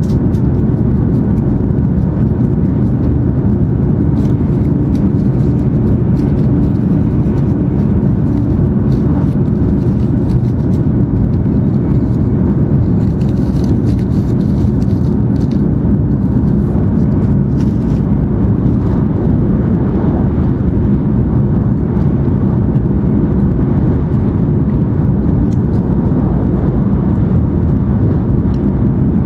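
Steady low rumble inside the passenger cabin of an N700 series Shinkansen running at high speed.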